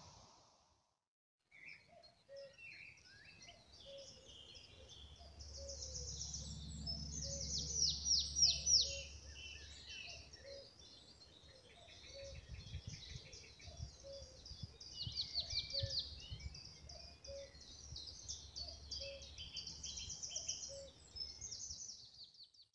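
Birdsong from several songbirds: rapid high trills and chirps, loudest about eight seconds in, over a lower call repeated about once a second.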